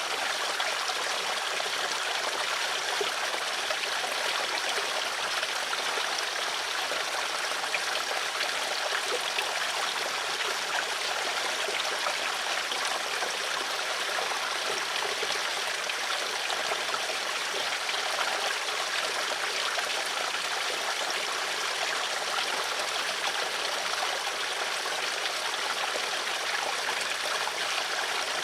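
Water flowing steadily, a continuous even rush and trickle with little low rumble.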